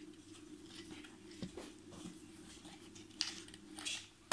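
Plastic truck-model parts being handled and fitted together: a few light clicks and taps, the sharpest near the end, over a faint steady low hum.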